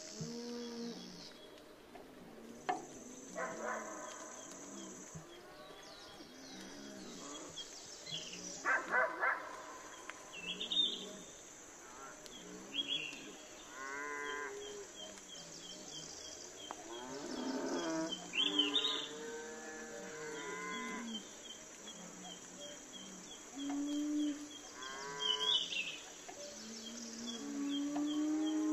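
Farm animals calling: repeated low, drawn-out calls many times over, with small high chirps of birds throughout.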